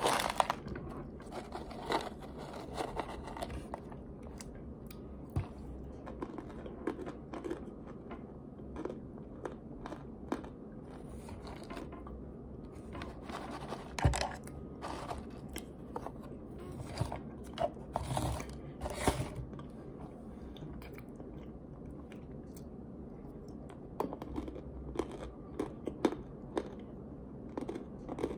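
Crunching and scraping of starch in a clear plastic jar, an irregular run of short crackles and clicks, with long acrylic nails tapping and scratching on the plastic.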